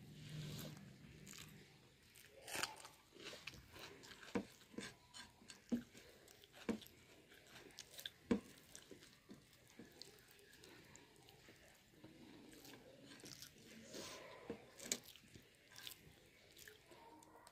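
Close-up eating sounds: a person chewing a mouthful of rice and bottle-gourd kofta curry, with irregular wet clicks and smacks of the mouth, while fingers squish and mix rice on the plate.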